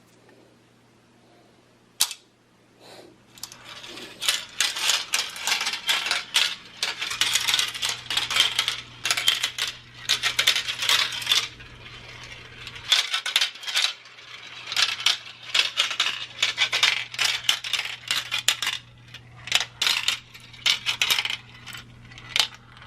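Mini marbles clattering down a plastic marble run: one sharp click about two seconds in, then a dense stream of light clicks and rattles that eases briefly midway.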